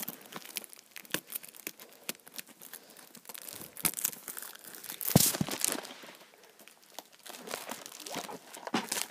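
Plastic shrink-wrap on a DVD case being picked at with fingernails, torn and crinkled: scattered crackles and small tearing rustles, loudest about five seconds in.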